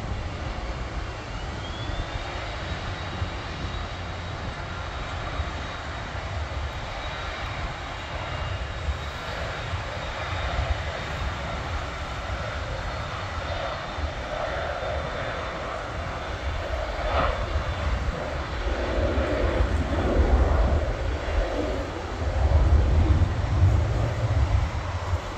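Business jet's turbofan engines at takeoff power. A high whine rises about a second in and then holds steady over a broad jet roar, and a deep rumble grows louder near the end as the jet rolls and lifts off.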